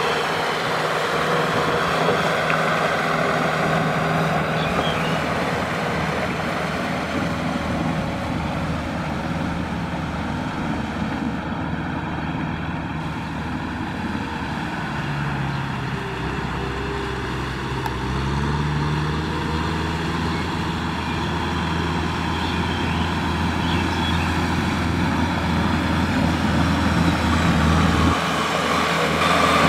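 Farm tractor's diesel engine running under load as it drags a rotary tiller through flooded paddy mud, with the churning, splashing noise of the tiller and wheels in the water. The engine's pitch sags and picks back up a little past the middle.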